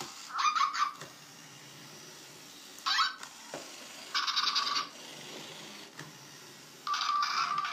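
Zhu Zhu Puppies robotic plush toy running on a wooden tabletop, giving off four short buzzy bursts of sound, the last and longest near the end.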